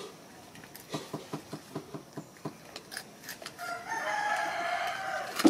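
A rooster crowing once in the second half, one long call, after a run of light knocks a few times a second.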